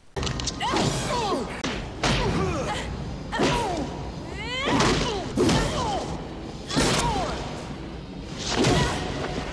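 Action-film fight soundtrack: heavy punch and kick impacts with whooshes about every second, short falling shouts and grunts between them, over a steady music bed.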